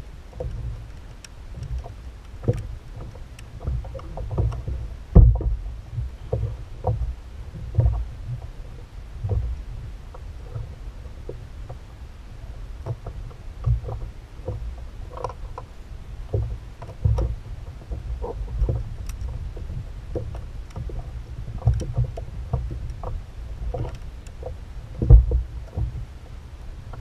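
Scattered knocks and taps on the hull of a sit-on-top fishing kayak as fishing line and gear are handled, over a steady low rumble. Two heavier thumps stand out, about five seconds in and near the end.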